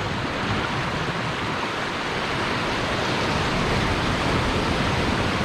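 Steady rushing of sea surf washing against a rocky shore.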